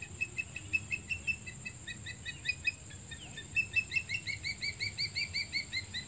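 Osprey calling: two runs of rapid, high, whistled chirps, the second run, starting about three and a half seconds in, an even string of about six notes a second.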